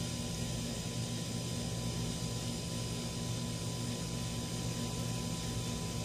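A steady low mechanical hum with a high hiss over it and a faint thin whine, unchanging throughout, with no distinct events.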